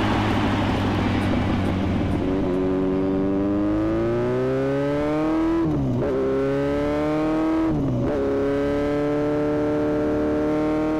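A motorcycle engine heard on board, over wind rush: it pulls up through the revs, upshifts twice (about six and eight seconds in), then holds a steady tone at cruising speed.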